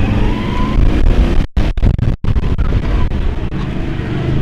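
Engine of an off-road vehicle running as it drives, with a heavy low rumble of wind buffeting the microphone. The sound cuts out briefly twice about halfway through.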